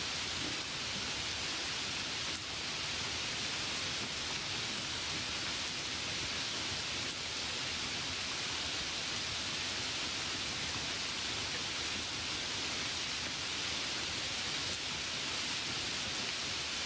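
A steady, even hiss with no other sound, brightest in the upper register.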